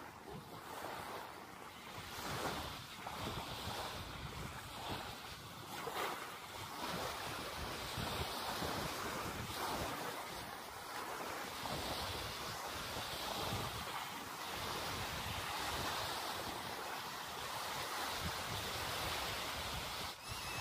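Small waves washing up and running back on a shallow sandy shore, swelling and easing every few seconds, with wind buffeting the microphone.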